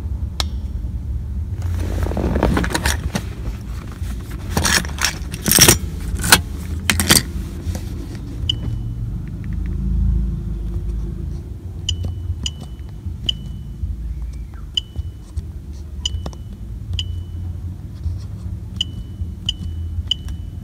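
Keys jangling and rattling as they are handled, over a steady low rumble. From about eight seconds in come short high beeps, about ten of them, each with a click, as buttons are pressed on a Xhorse VVDI Key Tool remote programmer.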